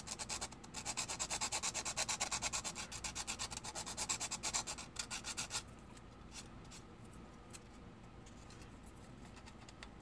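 Hand sanding of a small plastic model part: quick, even back-and-forth strokes, about six a second. They stop about halfway through, leaving only a few faint scrapes.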